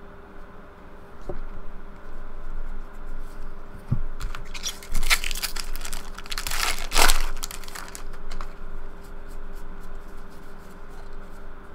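Foil wrapper of a 2013 Bowman Jumbo baseball card pack being torn open and crinkled. The crackling is loudest from about four to seven seconds in, with lighter rustling either side.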